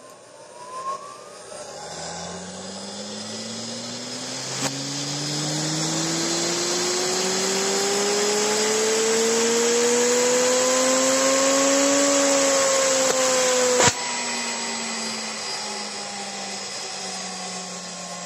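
A VFD-driven CNC spindle motor spinning up, with a whine that rises steadily in pitch over a growing rush of air. It peaks about twelve seconds in; after a sharp click near fourteen seconds the pitch and the rush fall away as the spindle slows down.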